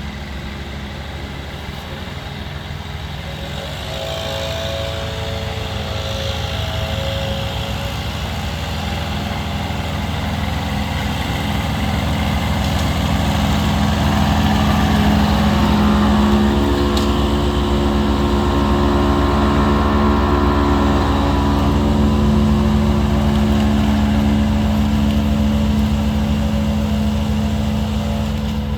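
Iseki 216+ ride-on mower running steadily while mowing, its engine note growing louder about halfway through, with a higher whine over it.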